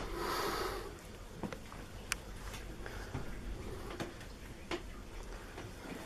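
A cat's paws and claws tapping and scratching on a wooden floor as it plays, making a few scattered sharp clicks. A short rustling burst comes in the first second.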